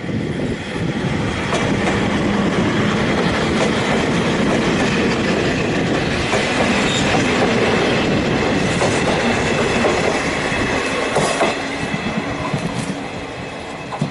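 Ex-Seibu 801-series three-car electric train pulling out and passing close by: wheel noise with a steady whine and clacks over the rail joints. It is loudest as it passes and fades near the end as it runs off.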